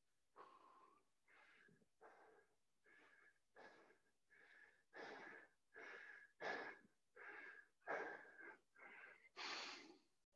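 A person panting hard and fast, out of breath from exertion, about one and a half breaths a second with a thin whistling wheeze on each breath, growing louder as the seconds go on.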